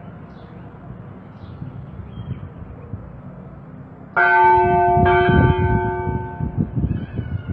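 Bronze church bell in the tower struck by its clapper twice, about four seconds in and again a second later, each stroke ringing on with several steady tones. Before the strokes there is only a low rumbling noise, which comes back under the ringing near the end.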